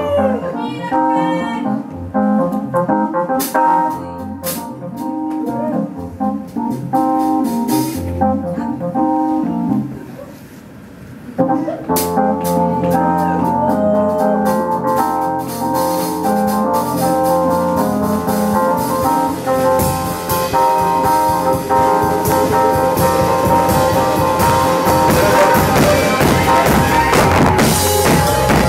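Live band playing jazzy dance music on keyboard, brass, guitar and drums. About ten seconds in the band drops to a quieter passage, comes back in on a sharp hit, then builds louder.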